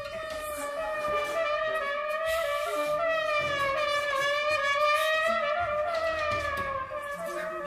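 Contemporary chamber ensemble music: one long held note that wavers slightly in pitch and is rich in overtones, over a shifting low rumble and brief noisy flurries.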